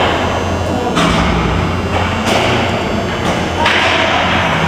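Hockey game noise in a rink: indistinct voices and thuds of play over a steady low hum.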